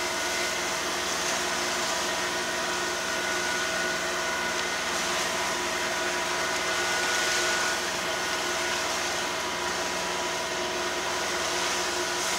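Steady drone of a sailing yacht's engine running under way, several constant tones over an even rush of wind and water.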